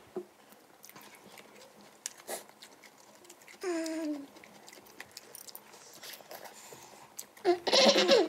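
Eating sounds at a table: soft chewing and light clicks of chopsticks and a spoon. About midway there is a short hum from a voice, falling in pitch. Near the end comes a louder, noisy outburst from one of the eaters.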